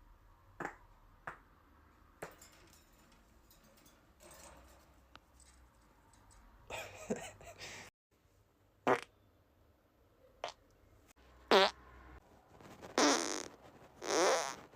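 A run of about eight farts, some short and some drawn out, several with a wavering pitch. The longest and loudest come near the end.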